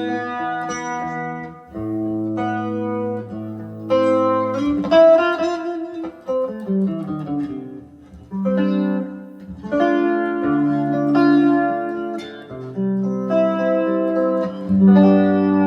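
Electric guitar played with a clean amp tone from a Valeton GP-200 modeler, heard in the room through Headrush 108 active monitors. The guitar plays a series of ringing chords and picked notes, each held a second or two with short breaks between.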